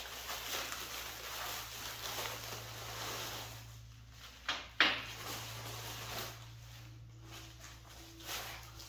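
Packing material rustling as engine parts are unwrapped and handled, with two sharp knocks a little before the middle as a part or the box is set down or bumped.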